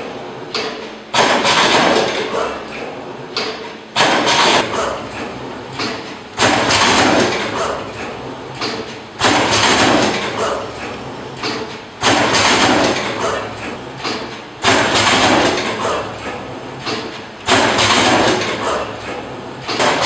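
Automatic wire stripping, twisting and soldering machine running through its working cycle: each cycle starts suddenly and loudly, then dies away over a couple of seconds, repeating about every 2.8 seconds.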